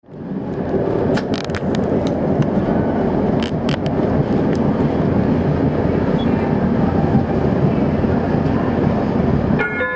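Tram running along its track, recorded aboard: a steady rumble of wheels on rails and drive, with a few sharp clicks and squeaks about a second in and again around three and a half seconds. Just before the end, a multi-tone chime begins, the tram's onboard signal ahead of a stop announcement.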